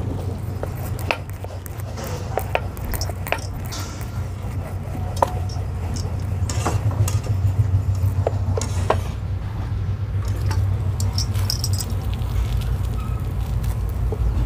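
Scattered clinks and taps of cooking utensils: metal tongs and a spatula on a griddle (tawa), and a rolling pin knocking on a steel plate, over a steady low hum.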